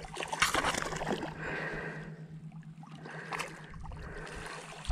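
A hooked largemouth bass thrashing at the surface beside a small boat as it is reeled in, with water splashing and sloshing in bursts. The strongest burst comes about half a second in.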